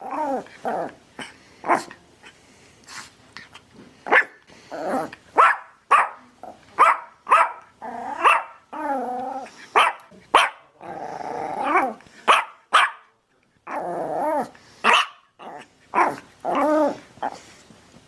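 A dog barking over and over in short, sharp barks at irregular spacing, with a few longer barks whose pitch bends.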